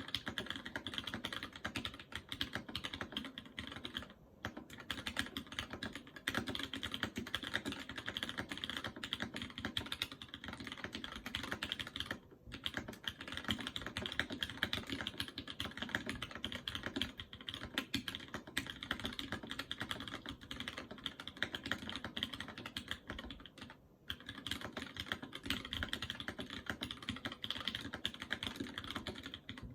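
Typing on a mechanical keyboard with lightly lubed Cherry MX Red linear switches on an aluminium plate, with CRP keycaps and TX stabilisers: a steady rapid clatter of keystrokes. Brief pauses come about four, twelve and twenty-four seconds in.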